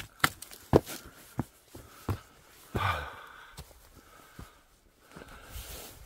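Footsteps and small knocks on stones and loose bark, a few sharp ones in the first two seconds, with a person's breathy exhales about three seconds in and again near the end.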